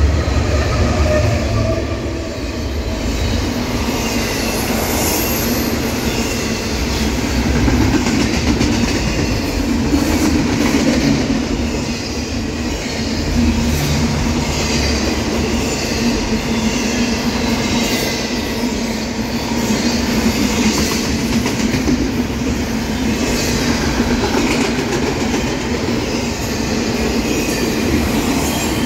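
BNSF diesel freight locomotive passing close by, then the steady rumble and clatter of double-stack container well cars rolling over the rails. The locomotive is heaviest in the first couple of seconds before the cars take over.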